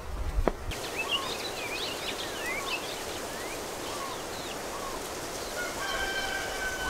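Outdoor morning ambience of small birds chirping over a steady hiss, then a rooster crowing near the end, fainter than the crows around it.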